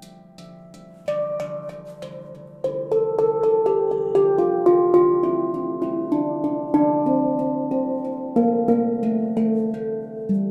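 Handpan in an extended D Kurd scale, made by Hamsa Handpans, played with the hands in quick arpeggios: struck steel notes ringing over one another. It grows sharply louder about a second in and again a couple of seconds later.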